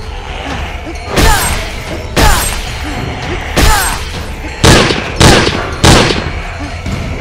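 Six loud, sharp bangs over a steady background music bed: three about a second apart, then three more in quicker succession about half a second apart.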